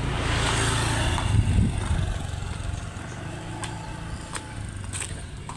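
A motor vehicle passing close by: its engine and road noise swell to a peak about a second and a half in, then fade away.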